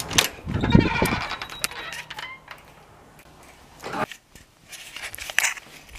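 Metal-framed glass entrance door being pulled open and walked through: a rush of rattling and handling noise in the first second, then scattered clicks and footsteps, with a sharp knock about four seconds in.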